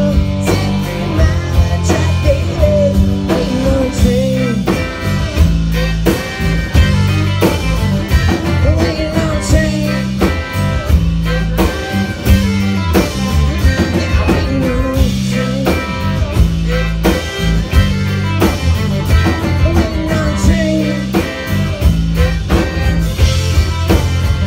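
A rock band playing live: electric and acoustic guitars, fiddle and drums over a steady beat.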